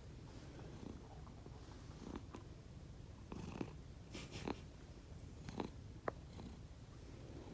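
Domestic cat snoring: a faint, steady low rumble, unlike its usual purring, with a few short louder breath sounds in the second half.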